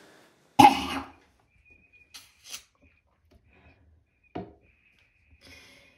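A woman coughing: one loud cough about half a second in and a shorter one near the four-and-a-half-second mark, with a few faint clicks between them.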